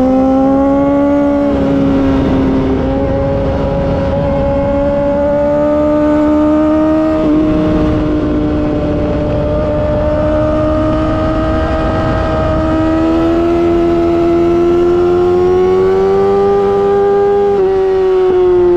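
2019 Yamaha R6's inline-four engine through an Akrapovic Evolution racing exhaust, held at high revs with the pitch slowly climbing. There is a brief hitch about seven seconds in, and the pitch falls away near the end.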